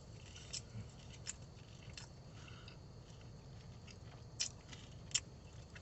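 Faint chewing of a breaded fried chicken tender, with a few soft crisp clicks from the crunching coating.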